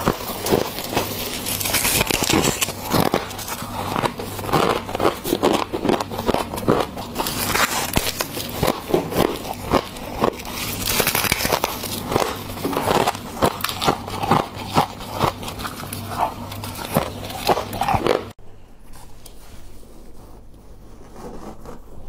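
Crisp crunching and chewing of mouthfuls of packed freezer frost, a dense run of sharp crunches close to the microphone. It stops suddenly a few seconds before the end, leaving only a quiet background.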